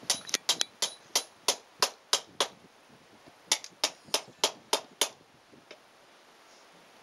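Blacksmith's hand hammer striking metal on an anvil: a run of about ten quick blows, a pause of about a second, then six more evenly spaced blows. The first few blows ring.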